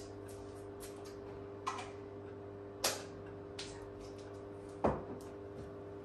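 Built-in microwave oven running with a steady hum while it heats a bowl of water, lemon and white vinegar. A few light knocks and clicks of items handled on the countertop, the loudest about five seconds in.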